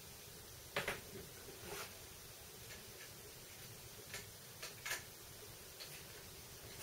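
A few separate light metallic clicks and taps from handling a stepper motor against its mounting plate and turning its bolts with an Allen key, the sharpest about a second in and just before five seconds in.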